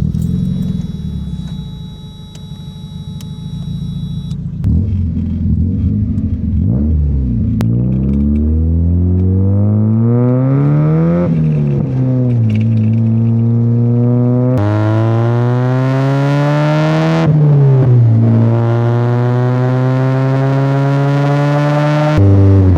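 Mazda Miata's 1.6-litre four-cylinder engine running low and steady at first, then revving up as the car pulls away and accelerates through the gears. The pitch climbs and drops back with each gear change.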